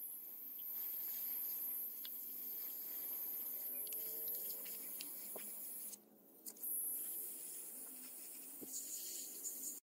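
Airbrush spraying orange paint onto masked model car interior parts: a steady hiss of air and paint, broken briefly about six seconds in when the trigger is released, then resuming until it cuts off just before the end.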